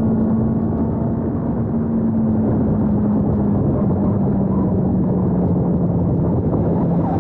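Honda CB650R's inline-four engine running at high road speed, its pitch sinking slowly as the bike slows, over a steady rush of wind.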